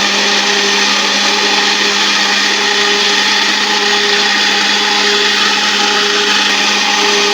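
Electric blender running steadily at a constant pitch, pureeing boiled garden eggs (African eggplant) and their seeds.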